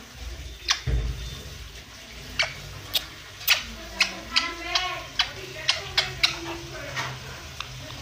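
Pet parrot giving kisses: about a dozen sharp, wet smacking clicks at irregular intervals, with short wavering chirpy calls between them around the middle.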